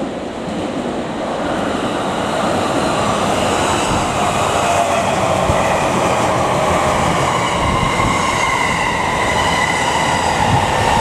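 JR East E231-series ten-car electric train running past at speed as it arrives, its wheels clacking over the rail joints. A steady, loud rumble builds over the first two seconds as the cars reach the microphone, with a faint whine falling in pitch as the train slows.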